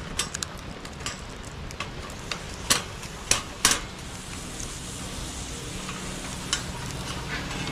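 Campfire crackling, with sharp irregular pops; about four seconds in a steady hiss of flame rises beneath the pops.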